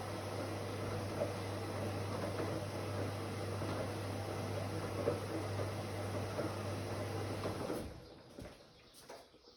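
Whirlpool AWOC 8283 washing machine running with a steady low hum and faint sloshing and clicks; the hum cuts off abruptly near the end, leaving it almost quiet.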